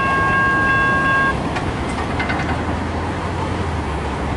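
Locomotive horn sounding a steady chord of several tones that cuts off about a second in, followed by steady rumbling noise with a few light clicks. A low engine drone comes in near the end.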